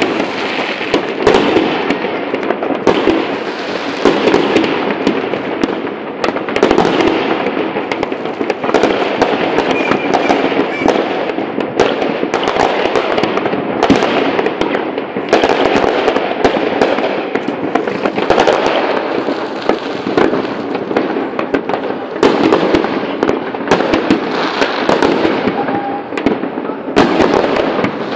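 Many fireworks going off at once: a dense, unbroken barrage of crackling with sharp bangs every fraction of a second.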